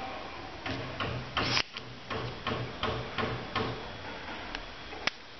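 Heated desoldering iron with a built-in vacuum solder sucker being worked on a circuit board's solder joints: a string of small mechanical clicks and knocks. A louder rushing burst cuts off suddenly about a second and a half in, and a single sharp click comes near the end.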